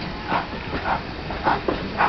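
GWR Manor-class 4-6-0 steam locomotive 7828 Norton Manor working a train at low speed, its exhaust beats coming about twice a second over the rumble of the carriages, heard from a carriage window down the train.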